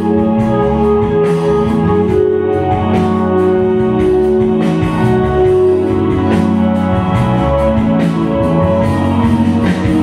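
Music played for a stage performance, with long sustained chords.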